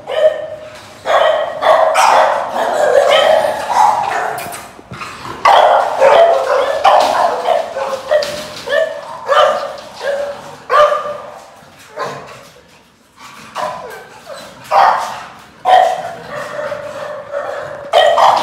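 American bully dogs barking repeatedly and excitedly from their kennel cages, one bark after another with short gaps.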